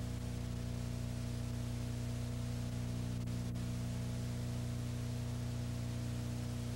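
Steady electrical hum with several evenly spaced tones under a layer of hiss, the noise floor of an old videotape's audio track with no program sound on it. Two faint ticks come about three seconds in.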